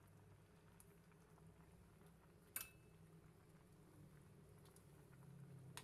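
Near silence over a faint steady low hum, broken once about two and a half seconds in by a single sharp click with a brief ring, a metal ladle touching the cooking pot.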